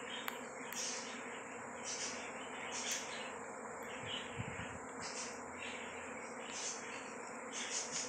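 A honeybee swarm buzzing in flight: a steady drone from thousands of bees in the air, with brief louder buzzes every second or so.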